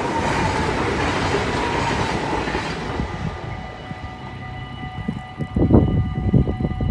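NS double-deck passenger train rushing past a level crossing, its noise fading away after about three seconds. The crossing's warning bells ring steadily alongside it, and irregular low thumps come in the second half.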